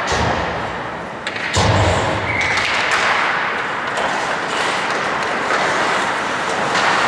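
Ice hockey play: a sharp knock at the start and a heavier thud about a second and a half in, then a continuous scraping hiss of skate blades on the ice with a few small clicks from sticks and puck.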